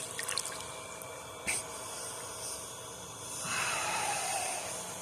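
A person sitting in cold creek water: a few splashes and drips, then a heavy breath out about three seconds in, lasting over a second.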